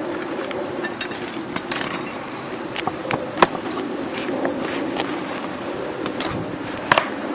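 Hook-blade utility knife cutting roofing felt: scattered scratchy tearing strokes with two sharp clicks, one about three and a half seconds in and one near the end, over a steady low hum.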